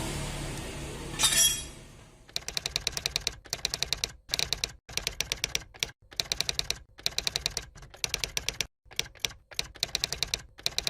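Ratchet wrench clicking in quick runs of about a dozen clicks a second, stopping and starting every half second or so, as bolts on a motorcycle engine are turned. Before that there is a steady hiss and hum, with a brief sharp rattle about a second and a half in.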